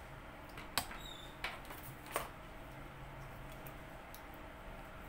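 A few light, sharp clicks and taps as small parts and a length of connecting wire are handled, over a faint steady low hum.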